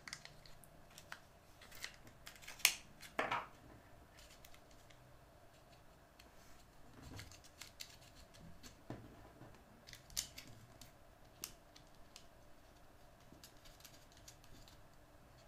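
Faint, scattered clicks and taps from hand-assembling a 3D-printed plastic frame with small machine screws and nuts, with two louder clicks about three seconds in.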